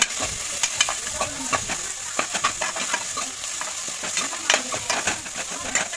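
Metal ladle scraping and clinking against an aluminium pressure-cooker pan, several strokes a second, as onions and spices are stirred, over a steady sizzle of frying in hot oil.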